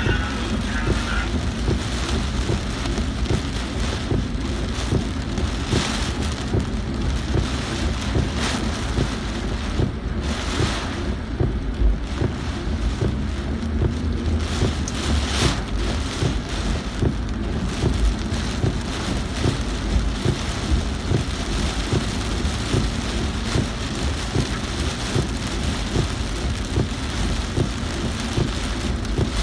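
Heavy rain falling on a car's roof and windshield, heard from inside the moving car over a steady low rumble of the car and its tyres on the wet road.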